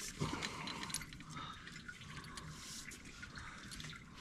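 Faint, scattered small clicks and taps of hands and tools working at a tractor's water pump and pulley, busiest in the first second.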